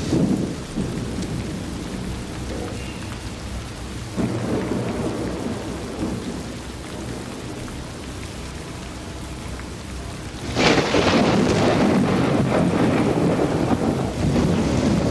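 Thunderstorm: heavy rain pouring steadily with low rumbling thunder, and a sudden loud thunderclap about ten seconds in that rolls on to the end.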